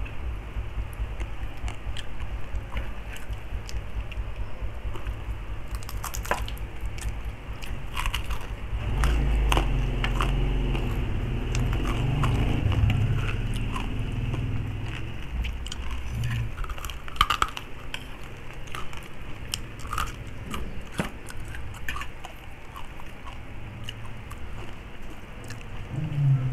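Close eating sounds: biting and chewing crispy pata (deep-fried pork knuckle) and garlic, with scattered small crunches and clicks and a sharp click about two-thirds of the way through.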